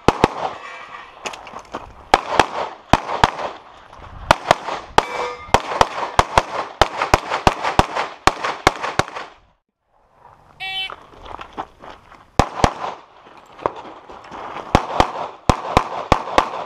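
Strings of rapid pistol shots, several a second, from a competitor firing through a practical-shooting stage. About ten seconds in the firing breaks off, a short electronic shot-timer beep sounds, and a fresh string of shots follows.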